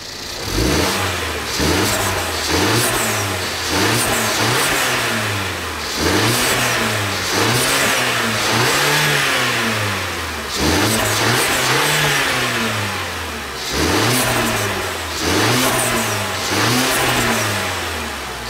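2014 Mercedes-Benz CLA 250's turbocharged 2.0-litre four-cylinder engine, with its factory Mercedes diverter valve, revved repeatedly in quick blips, the engine note rising and falling each time. Faint high whistles fall away after some of the revs.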